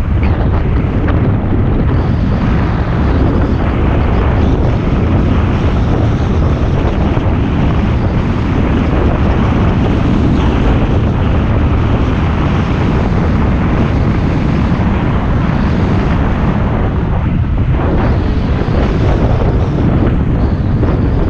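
Steady, loud wind rush on the rider's helmet microphone on a moving motorcycle, with the motorcycle running and road noise underneath.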